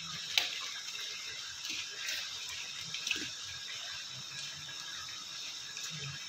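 Hands mixing wet grated mooli (white radish) with spices in a bowl: faint, soft wet squishing, with a sharp click about half a second in and a smaller one about three seconds in.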